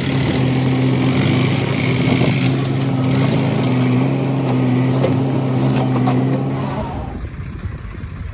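Swaraj 742 XT tractor's three-cylinder diesel engine running steadily under load as it drives past pulling a trolley loaded with mud. About seven seconds in the sound drops suddenly to a quieter low rumble.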